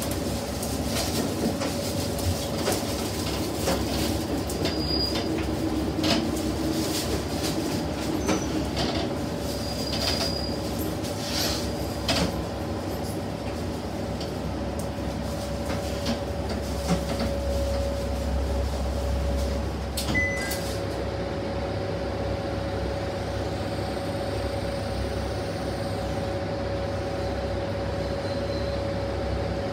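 Cabin sound of a Tenryu Hamanako Railway diesel railcar under way: a steady low engine drone with a constant whine, and wheels clicking over the rails through the first half. After about twenty seconds the clicking stops and the sound settles to a smoother drone as the car draws along a station platform.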